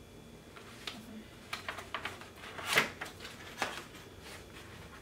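Cardboard box of a ceramic knife set being handled and opened: scattered rustles, scrapes and taps, the loudest about three seconds in.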